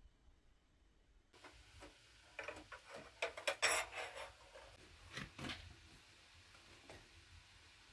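Tea glass and metal serving tray clinking and rattling against each other and the teapot, a run of short clinks that starts about a second and a half in, is busiest about halfway through, and thins out to a few last taps.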